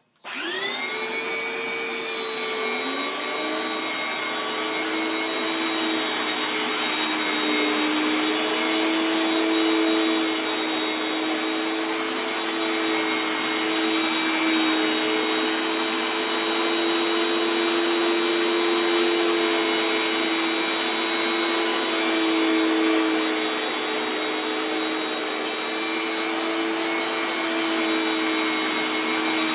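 Upright carpet-washing machine switched on, its motor spinning up with a rising whine over the first three seconds or so, then running steadily with a slightly wavering pitch and a strong suction hiss as it is pushed back and forth over a rug.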